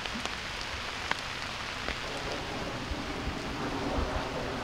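Steady rain falling, an even hiss with a few scattered sharp ticks of drops.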